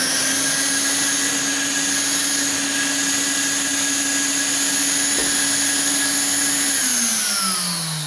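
Vacuum cleaner drawing air through an Oneida cyclone separator on a large plastic collection bin, running at full power with a steady whine over rushing air. It is switched off about seven seconds in, and its pitch falls as the motor winds down.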